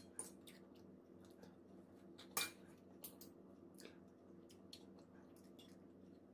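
Fork and spoon clinking and scraping on a plate in light scattered clicks, with one louder clink about two and a half seconds in, over a faint steady hum.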